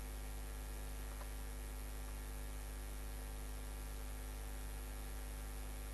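Steady electrical mains hum with a faint buzz, a constant low drone with many overtones.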